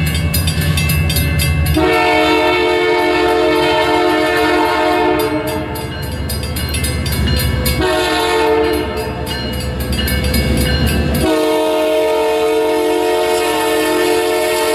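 Canadian Pacific diesel freight locomotive's air horn sounding long blasts as the train approaches, a chord of several notes: one of about four seconds starting about two seconds in, another of about three seconds from about eight seconds in, and a third from about eleven seconds in, held to the end. A low rumble fills the gaps between blasts.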